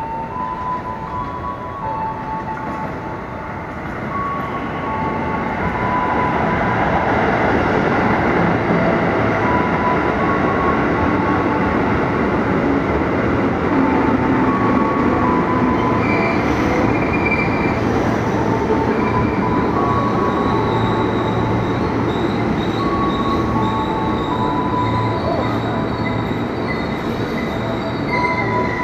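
KRL Commuterline electric multiple unit pulling into the station and running past along the platform. Its wheel-on-rail rumble swells over the first few seconds, then holds steady with a low motor hum. Thin high squealing tones join about halfway through.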